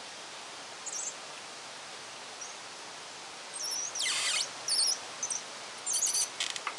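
Hand suction pump drawing stale petrol out of a small engine's fuel tank and squirting it into a plastic can, heard as short hissing spurts over a steady background hiss. A few high wavy chirps come about halfway through.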